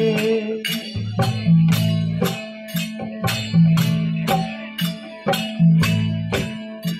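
Instrumental interlude of a Rajasthani folk bhajan: harmonium and a droning desi veena (tandura) carry the tune over a steady beat of dholak and clacking kartals, about two to three strikes a second.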